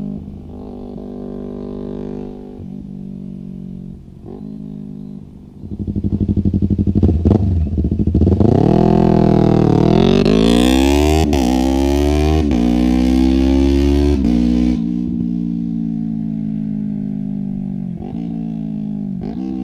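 Yamaha R3's parallel-twin engine through a full Akrapovic exhaust, running at moderate revs, then accelerating hard from about five seconds in. The revs climb in several rising sweeps with brief breaks as it shifts up on the quickshifter. At about fifteen seconds it backs off and the revs fall slowly.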